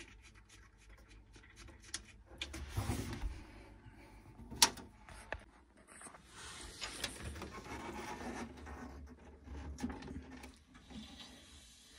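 Faint handling noises inside a boiler casing: rubbing and scraping of hands and tools on the casing, with several sharp clicks, the loudest about four and a half seconds in.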